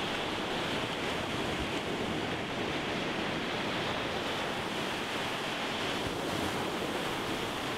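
Surf: small waves breaking and washing up a sandy beach, heard as a steady hiss.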